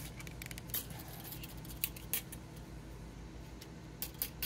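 Faint handling noise: a few light clicks and taps as a pocketknife is handled and measured, over a low steady hum.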